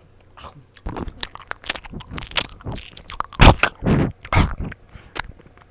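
A person eating an ice cream sundae with hot fudge and whipped cream close to the microphone: a run of wet smacking and chewing noises, loudest a little past the middle.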